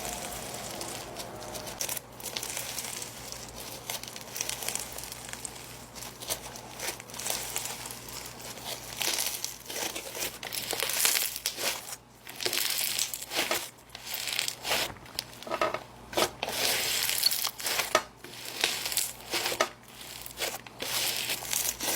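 Snow fizz slime being squeezed and stretched by hand, giving irregular fizzy crinkling and crackling that gets louder and busier about halfway through.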